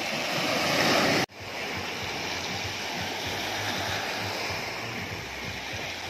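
Sea surf washing over a pebble beach, a steady rushing hiss of water. About a second in it cuts out for an instant and comes back a little quieter.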